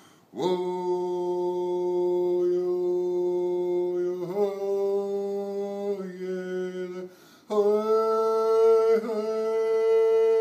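A man chanting without words in long held notes, stepping up in pitch: one long note, a higher one about four seconds in, then after a short break a still higher note held to the end.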